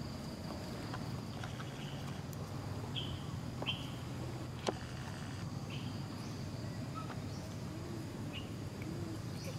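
Outdoor ambience: a steady high insect drone, with a few short chirping calls and one sharp click about halfway through.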